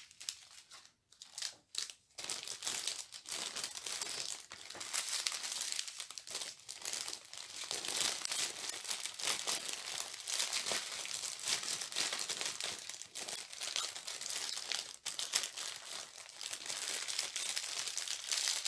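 Plastic packaging crinkling and rustling as it is handled and unwrapped: a few scattered crackles at first, then near-continuous crinkling from about two seconds in.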